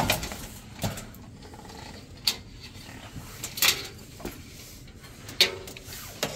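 Sheet-metal control board box knocking and scraping against the blower housing as it is fitted into place: about five separate sharp metallic knocks, one near the end with a short ring.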